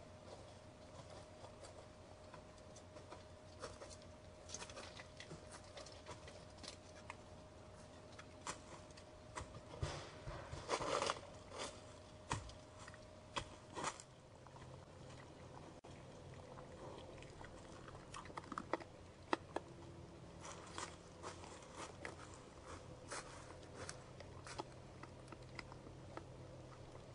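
White-tailed deer stepping through dry fallen leaves: scattered, irregular crunches and rustles, with a cluster of louder ones about ten to eleven seconds in.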